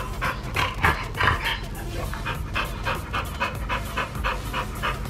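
Olde English Bulldog panting hard through an open mouth, a quick even rhythm of about four breaths a second, a few louder breaths about a second in.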